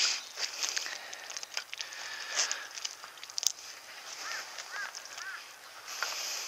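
Rustling and knocks from a rubber landing net being handled with a freshly netted rainbow trout in it. Three short bird calls come about four to five seconds in.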